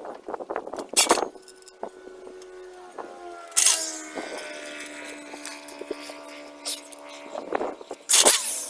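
Drill with a screwdriver bit driving screws into pine boards: a steady motor whine that drops in pitch about four seconds in as the screw bites. Sharp clacks about a second in, around three and a half seconds in and near the end.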